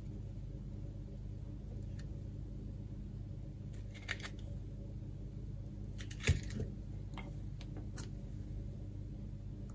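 Small clicks and taps from hands working a coax cable joint with a soldering iron, over a steady low hum. The sharpest tap comes about six seconds in, with lighter clicks around four and eight seconds.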